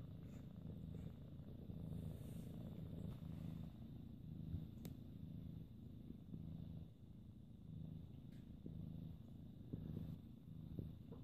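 A cat purring softly and steadily, swelling in a regular rhythm about once a second with each breath, with a light click about five seconds in.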